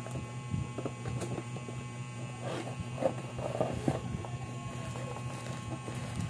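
A cardboard product box being handled and opened: soft scrapes, taps and rustles of the cardboard, busiest in the middle, over a steady low hum.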